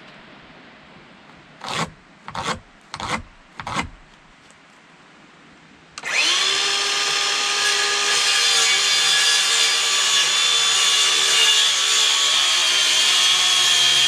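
Four short scratchy strokes, then about six seconds in a yellow handheld circular saw starts and runs with a steady whine, cutting through a wooden board.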